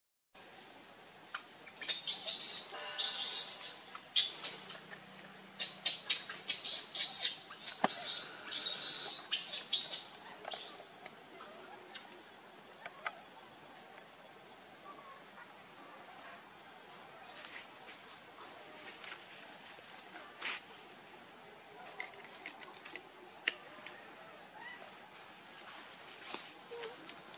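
Insects droning steadily in a high, even tone. In the first ten seconds a run of loud, scratchy, irregular bursts rises over the drone.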